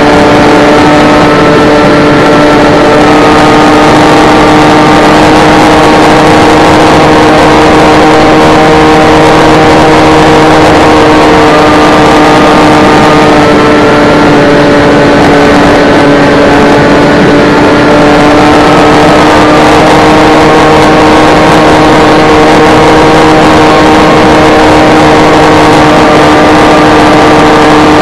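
Electric motor and propeller of an S800 FPV model plane running at a steady cruise: a loud, steady drone with a higher tone that drifts slowly up and down. Wind rush hisses on the onboard camera's microphone.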